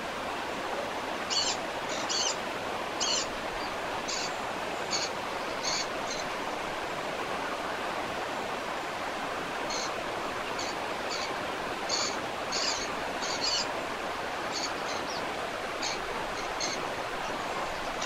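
Steady rush of a waterfall, with clusters of short, high bird calls over it: a run in the first few seconds, a pause, then another run from about ten seconds in.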